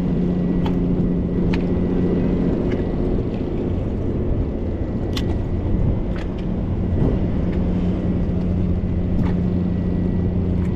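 An engine running steadily, a low even drone with a strong hum, with a few faint clicks over it.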